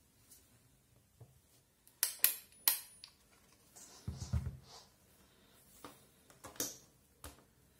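Handling sounds on a hard tabletop: a small plastic-cased sealed lead-acid battery and a handheld digital multimeter set down with a few sharp knocks about two seconds in, a low thump about four seconds in, then clicks as the multimeter's rotary dial is turned.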